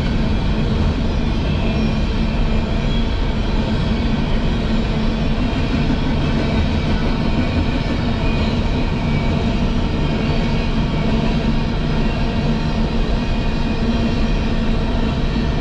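Coal train's open-top freight cars rolling steadily past a grade crossing: a continuous noise of steel wheels on the rails, unchanging in level.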